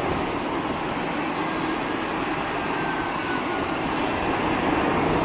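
Airbus A380's four jet engines on final approach with landing gear down: steady, even jet engine noise with a low hum, no sudden changes.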